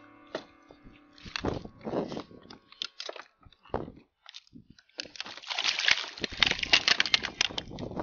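A hooked porgy being landed in a plastic kayak: scattered short splashes and knocks, then from about five seconds in a dense run of slapping and rattling as the fish thrashes and is handled. Background music fades out at the very start.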